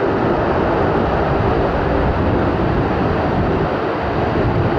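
Antonov An-12B's four Ivchenko AI-20 turboprop engines running with a steady, loud, noisy drone.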